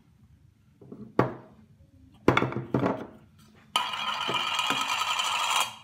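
Kitchen containers being handled: a few light knocks and clinks, then about two seconds of steady grating near the end.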